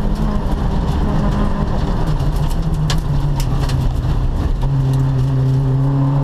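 Rally car engine heard from inside the stripped cabin, running hard and then dropping in pitch as the car slows, once around two seconds in and again near five seconds. A few sharp ticks of loose gravel hit the bodywork.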